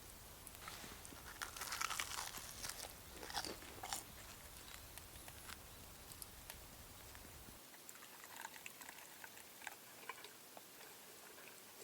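Irregular crunching and crackling: a dense cluster of sharp crunches in the first few seconds, then softer, sparser ones near the end.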